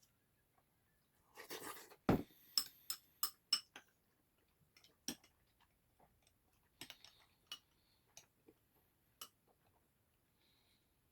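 Spoon and chopsticks clinking against a bowl of potato sujebi while eating. A short rustle, a thud about two seconds in, then a quick run of sharp clinks and scattered single clicks.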